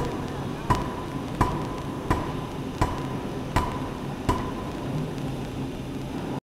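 Pneumatic forging hammer striking hot steel on the anvil: seven evenly spaced blows about 0.7 s apart, each with a short metallic ring, over a steady din. The blows stop a little after four seconds in, and the sound cuts out just before the end.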